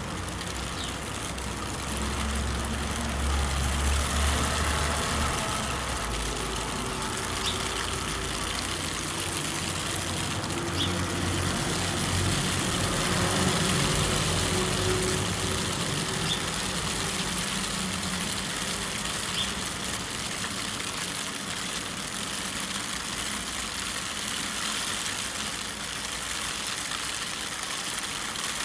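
Motor vehicle engine rumbling, strongest about two to six seconds in and again around twelve to sixteen seconds, over a steady hiss, with a few faint short bird chirps.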